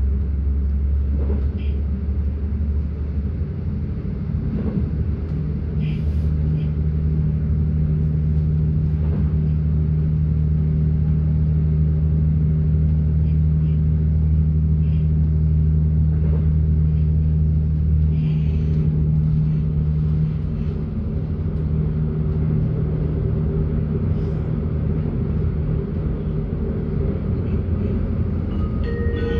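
SBB S20 regional passenger train running at speed, heard from inside the carriage: a steady rumble of the wheels on the rails under a low motor hum, with a few faint clicks.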